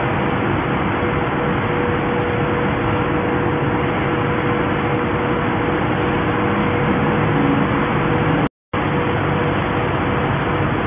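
Truck-mounted crane's engine running steadily while it lifts a load, a steady hum over even mechanical noise. The sound cuts out for a moment about eight and a half seconds in.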